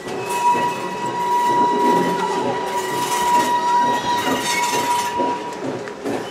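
Steam-train passenger cars rolling on a curve, with clattering wheels on the rails. A steady high-pitched wheel squeal starts just after the beginning and lasts about five seconds before fading out.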